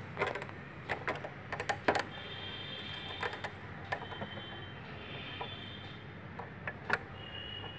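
Irregular light clicks and taps of fingers handling a diecast model bus while working its small openable passenger exit door, several in the first two seconds and a few more later.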